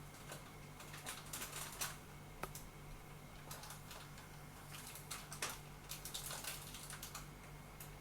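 Faint, irregular light clicks, taps and brushing rustles from a hamburger-style coaster set being handled, over a steady low hum.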